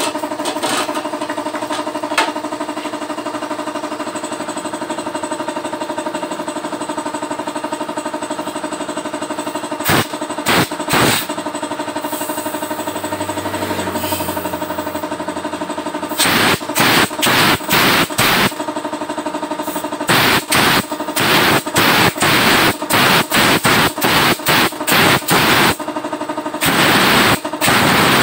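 Screwdriver scraping and prying at a motorcycle stator's coil windings in quick repeated strokes, two to three a second. The strokes start about ten seconds in and keep on through most of the second half, over a steady mechanical hum.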